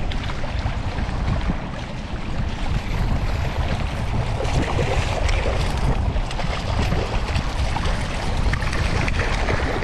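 Wind buffeting the microphone outdoors by the water: a gusty low rumble over a steady hiss, with no clear engine note.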